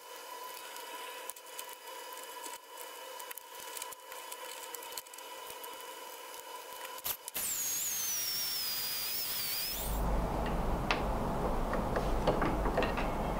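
Small benchtop drill press running with a steady hum for about seven seconds. Then comes a louder hiss with a high whistle that drops in pitch and levels off, and about ten seconds in a rough noise with scattered clicks and knocks from work at a bench vise.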